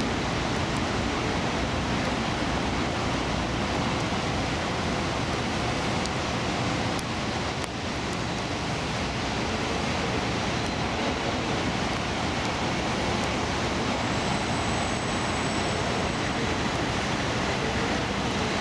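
Steady, even hiss of heavy rain mixed with traffic noise from a nearby elevated highway.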